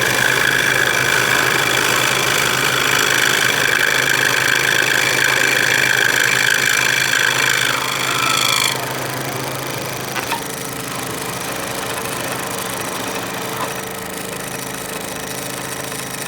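Scroll saw running and cutting through wood, a steady machine sound with a high singing tone from the blade. A little past halfway the cutting sound drops away and the saw runs on more quietly.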